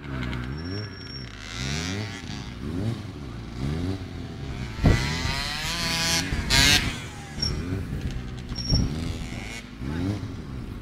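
Motorcycle engine revving up and down again and again, about once a second, as the throttle is worked to hold the bike in circle wheelies. A sharp knock about five seconds in and a brief harsh hissing burst about a second and a half later stand out.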